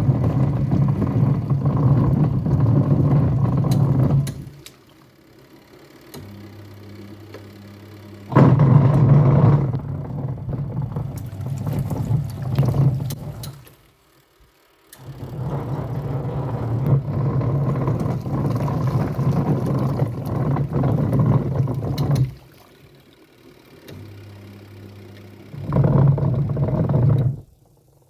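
Twin tub washing machine washing with a rumbling sound, in four stop-start bursts of churning and rumbling. Between bursts only a low steady hum remains.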